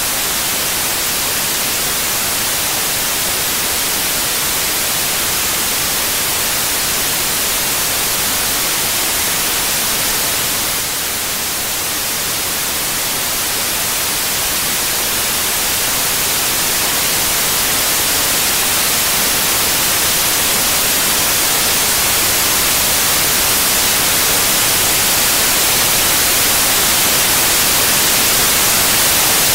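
Steady, loud white-noise hiss like static, strongest in the highs. It dips slightly about ten seconds in, then slowly grows louder.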